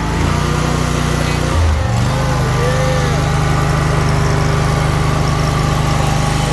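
Spartan zero-turn mower's 25 horsepower, 724 cc two-cylinder Briggs & Stratton engine running steadily just after starting, its pitch stepping up slightly about two seconds in.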